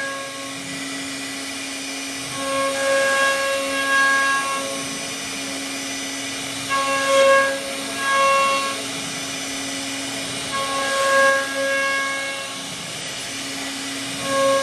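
CNC router spindle running with a steady high whine while its carving bit mills wood. The pitched cutting noise swells louder in spells of a second or two, about every four seconds.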